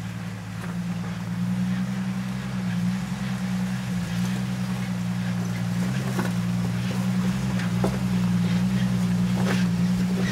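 Jeep engine running at low, steady revs while crawling over a rocky wash, growing louder as it comes closer, with a few sharp clicks of rocks under the tyres.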